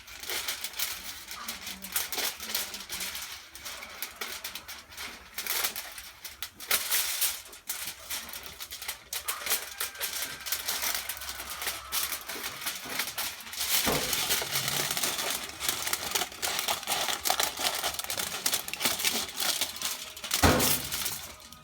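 Sheet of aluminium foil crinkling and crackling as it is handled and cut, a dense run of irregular crackles with a couple of louder crunches near the middle and end.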